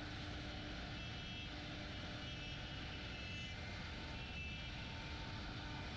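Steady machine running noise, heaviest in the low end, with faint whining tones that come and go.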